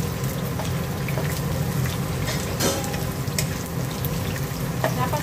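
Onion, garlic and ginger sizzling in hot oil in a non-stick wok as they are stir-fried with a wooden spatula, with a few sharp clicks of the spatula against the pan. A steady low hum runs underneath.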